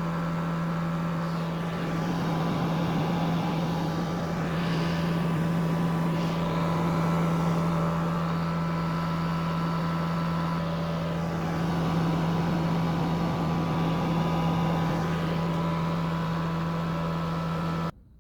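Gas-Fusion 400 electrofusion welding machine running: a steady electrical hum with a fan-like rush behind it, cutting off abruptly near the end.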